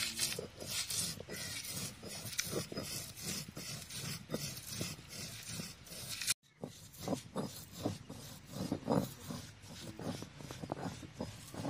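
Stone roller of a granite ammi (flat grinding stone) rolled back and forth over roasted whole dry spices, with repeated rough grinding and grating strokes as the chillies and seeds are crushed into powder. It breaks off briefly about six seconds in.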